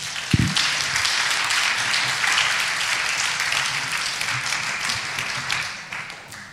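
Audience applauding in a hall, beginning with a low thump just as the clapping starts and dying away near the end.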